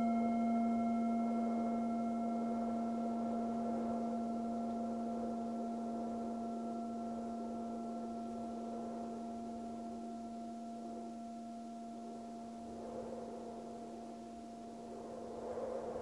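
Meditation singing bowl ringing with one long, slowly fading tone and a few higher overtones, over a soft wind-like hiss.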